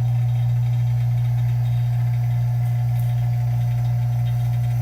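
Electric melting furnace giving off a loud, steady electrical hum while it melts silver.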